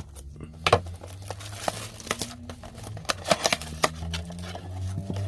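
Cellophane wrap crinkling and tearing as a retail blaster box of trading cards is opened, an irregular run of sharp clicks and rustles. A car engine runs low and steady underneath.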